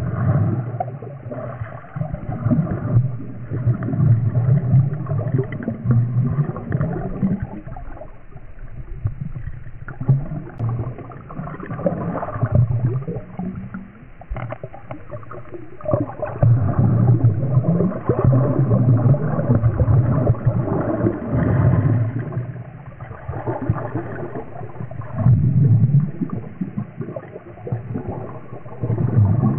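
Underwater gurgling and bubbling with a low rumble, swelling and fading every few seconds.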